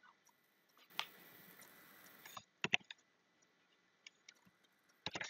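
Faint computer keyboard keystrokes: a click about a second in with a soft hiss after it, a few clicks a little later, then a quick run of key presses near the end.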